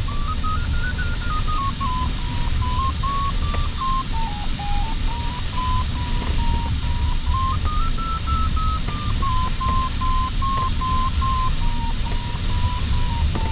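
Glider variometer's audio tone, its pitch stepping up and down with the climb rate while circling in a thermal, rising higher about a second in and again about eight seconds in. Steady rush of airflow in the cockpit underneath.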